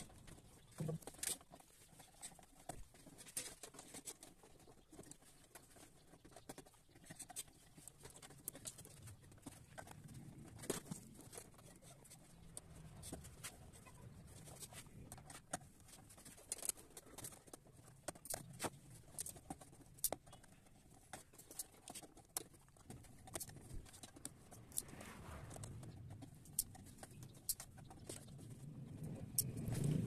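Faint, irregular small clicks, taps and rustles of insulated wires with ferrule ends being handled and fitted into plastic screw-terminal blocks on a relay module. The handling grows louder near the end.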